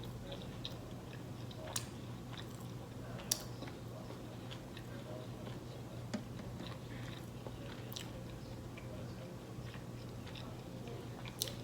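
A person quietly chewing food close to the microphone, with a few sharp, scattered mouth clicks and smacks.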